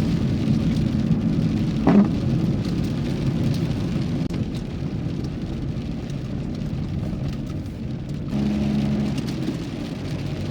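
Cabin noise of a Renault Kangoo driving in the rain: a steady low engine and tyre rumble with rain on the car. A short sharp sound comes about two seconds in, and the engine note changes about eight seconds in.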